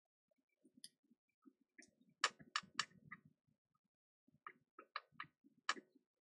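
Light, sharp clicks and taps of small hand tools handled on a repair bench: three close together about two seconds in and another group of four or five near the end, with faint low handling noise between.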